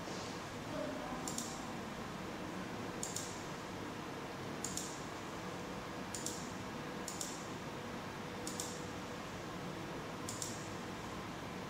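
Computer mouse clicking about seven times, a second or two apart, over a steady faint hiss.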